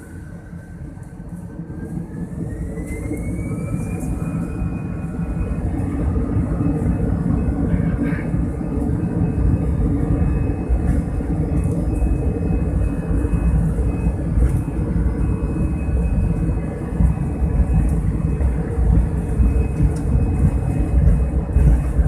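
Airbus A320 jet engines spooling up to takeoff thrust: a rising whine over the first few seconds as the sound grows louder. It then settles into a steady, loud rumble with a held whine as the aircraft rolls down the runway.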